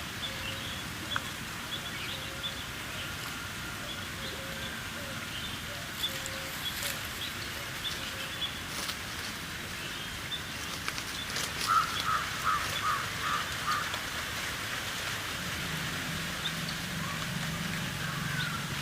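Birds chirping over a steady hiss, with a crow cawing about five or six times a little past the middle and a low hum starting near the end.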